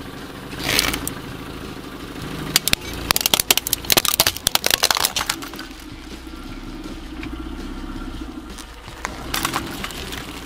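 A slowly rolling car runs its tyre over a hard plastic toy on asphalt: the engine runs low and steady while the plastic cracks and crunches in a quick run of snaps between about two and a half and five seconds in.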